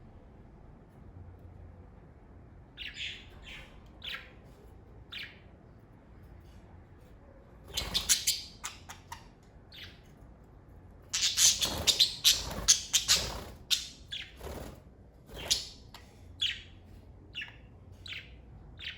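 Pet budgerigars chirping: scattered short chirps, with a louder flurry about eight seconds in and a dense, loud burst of chatter a few seconds later, then thinning to single chirps.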